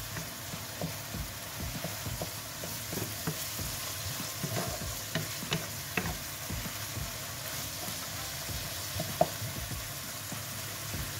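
Wooden spatula stirring and scraping a sizzling stir-fry of sliced cucumber and egg in a nonstick wok, over a steady frying hiss. Short knocks of the spatula on the pan come throughout, the sharpest about nine seconds in.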